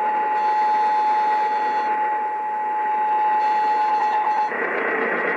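Emergency Alert System attention signal playing through a radio: a steady two-tone alert that cuts off suddenly about four and a half seconds in, leaving radio hiss just before the test announcement.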